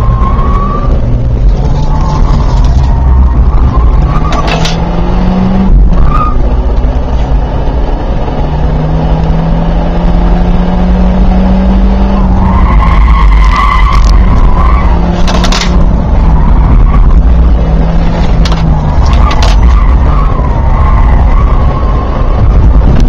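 Ford Focus I 1.6-litre 16-valve four-cylinder petrol engine heard from inside the cabin, its revs rising and falling as the car is driven hard round a track, with tyres squealing at times and a few short knocks.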